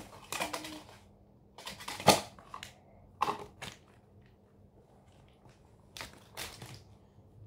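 Crinkling and tearing of toy packaging, a thin white wrapper and a small cardboard box being pulled open by hand, in four short bursts with pauses between, the loudest about two seconds in.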